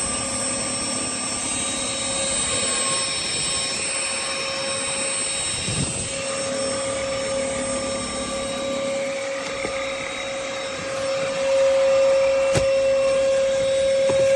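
Cordless stick vacuum cleaner running, a steady motor whine over a rushing hiss, growing louder a little before the end. One short click comes near the end.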